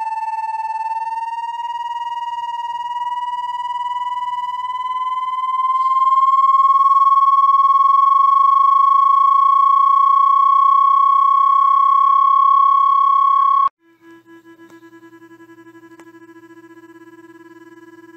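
Electronic tone sold as a rodent-repellent sound, rich in overtones, rising slowly in pitch for several seconds and then held steady. It cuts off abruptly about fourteen seconds in and gives way to a quieter, lower steady tone.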